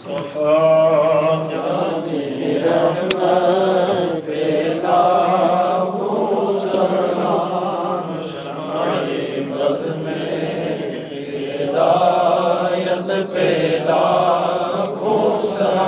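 A man chanting a devotional salutation into a handheld microphone, in long melodic phrases with short breaks between them.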